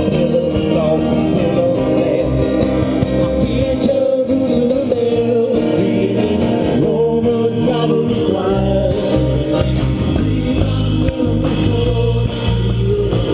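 Live band playing a song on guitars, electric bass and drum kit.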